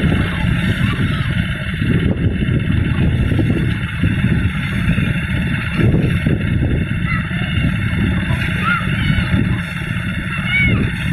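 Small petrol engine driving a portable rice thresher, running steadily as rice stalks are fed into the spinning threshing drum.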